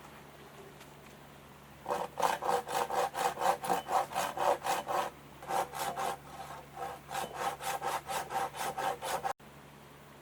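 Wood being sawn by hand: quick back-and-forth saw strokes, about three or four a second, with a brief pause about halfway, stopping abruptly near the end.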